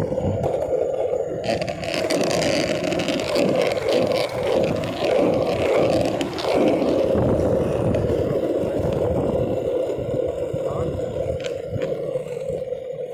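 Longboard wheels rolling over pavement: a steady, rough hum with low rumble, which gets hissier for a few seconds early in the ride.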